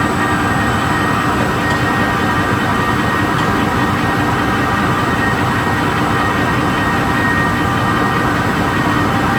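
Toilet tissue converting line running: a steady mechanical din with several constant whining tones, unchanging throughout.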